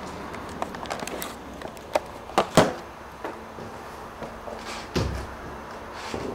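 Camera-handling clicks and knocks as the camcorder is moved and set down, with two louder knocks about two and a half seconds in and a low thump about five seconds in.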